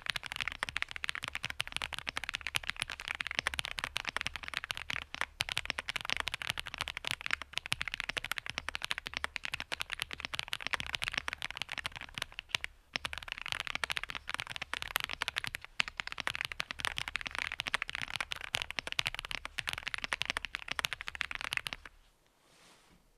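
Fast, continuous typing on a GMMK Pro aluminium-cased mechanical keyboard: a rapid stream of keystroke clacks. There is a brief pause about halfway through, and the typing stops about a second before the end.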